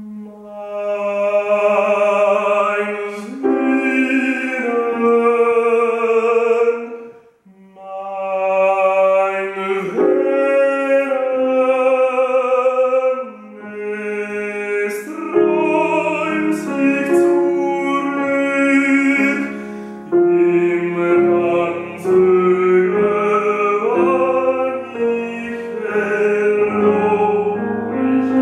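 A man singing in a classical, operatic style with vibrato, accompanied by a grand piano. The long phrases break for brief breaths, with the clearest pause about seven seconds in.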